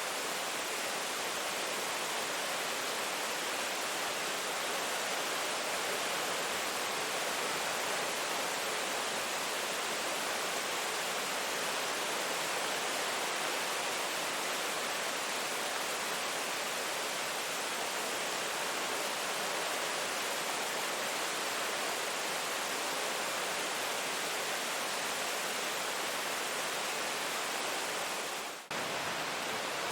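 Steady, dense rain hiss with no separate drops standing out, briefly dipping out for a moment near the end before carrying on.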